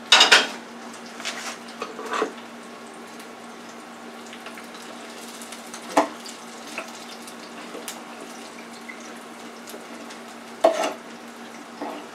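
Kitchen utensils knocking and clinking against dishes and a stainless steel deep fryer: a loud clatter right at the start, then a few separate knocks, over the steady sizzle of frying oil.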